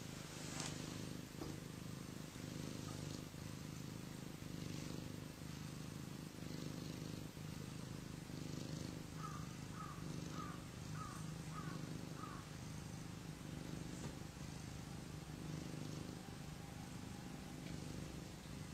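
Cat purring steadily in a continuous low rumble. About halfway through, six faint short chirps come in a quick row.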